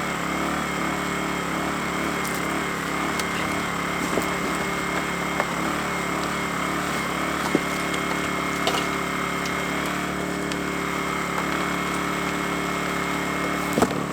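Lifan ESI860i-CA 40cc gasoline inverter generator running at a steady speed. A few faint short taps are heard over it.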